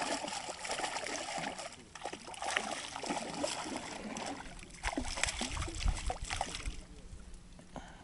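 Water splashing and sloshing at a boat, with many small knocks and clicks mixed in; it dies down near the end.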